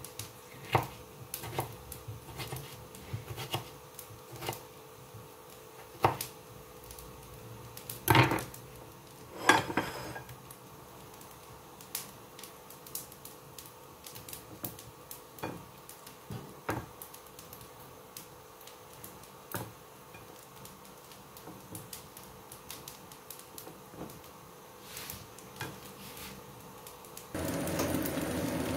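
Kitchen knife cutting a tomato on a plastic cutting board: scattered light taps and knocks of the blade on the board, with a few louder clatters as slices go into a ceramic plate. Near the end, the sound changes to a steady noise of a pot of okra boiling on a gas stove.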